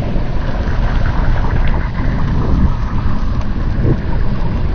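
Slowed-down sound of a Carl Gustav M2 recoilless rifle firing: a long, steady, deep rumble with a hiss above it.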